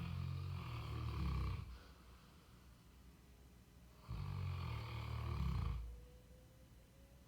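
Cane Corso dog snoring in its sleep: two long snores about four seconds apart, each lasting under two seconds.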